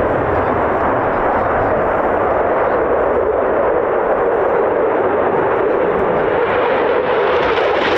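Eurofighter Typhoon jet, its twin EJ200 turbofans making a loud, steady rushing noise as it flies its display. The sound grows louder and brighter near the end as the jet comes closer.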